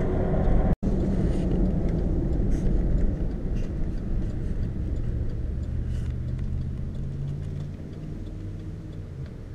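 Road and engine noise inside a moving car's cabin: a steady low rumble that drops out for an instant about a second in and grows quieter over the last few seconds.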